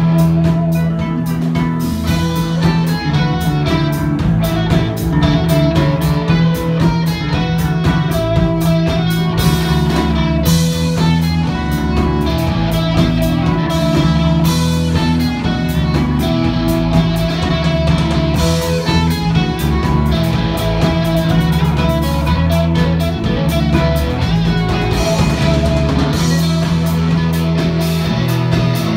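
Live instrumental rock band playing: two electric guitars over a drum kit, loud and steady with no singing.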